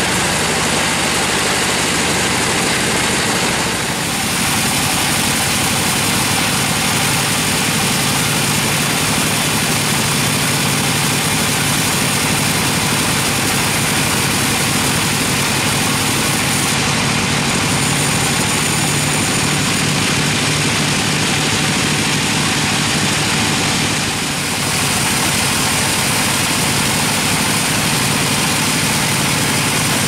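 Sawmill band saw running steadily, its blade sawing a squared gmelina (white teak) log into boards.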